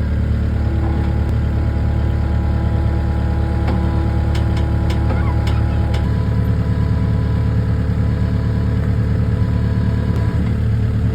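Skid steer engine running steadily under load while the machine pushes a stuck UTV free, with a constant low hum and a few faint knocks about four to five seconds in.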